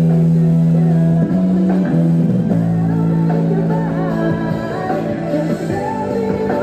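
Live busking: a guitar plays held chords, and a man's voice sings the melody over it from about halfway in.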